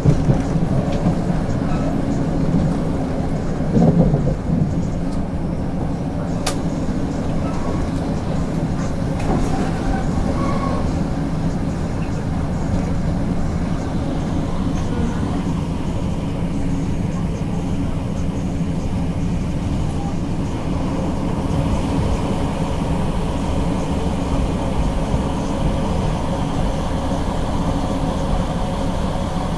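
Interior noise of a Class 156 diesel multiple unit running into a station: a steady underfloor diesel engine drone with wheel and track rumble. There is a louder knock about four seconds in.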